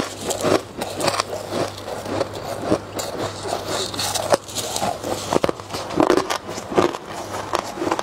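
Chunks of freezer frost being bitten and chewed close to a clip-on microphone: a rapid, irregular run of crisp crunches over a low steady hum.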